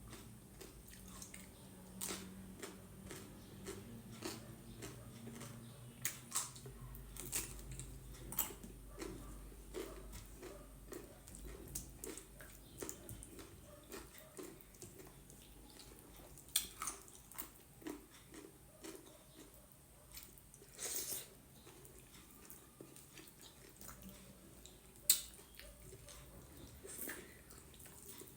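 A person eating close to the microphone: soft wet chewing with scattered lip smacks and clicks, on a mouthful of maize dhido with gundruk gravy.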